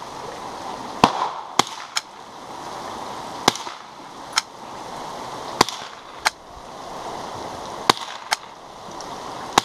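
Stevens Ranger 101.16 .22 rifle fired five times, about two seconds apart, each a sharp crack. Fainter sharp clicks follow most shots, over a steady hiss.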